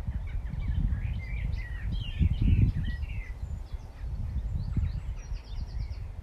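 Several birds singing and chirping over a low, uneven wind rumble on the microphone; about five seconds in one bird gives a quick run of high repeated notes.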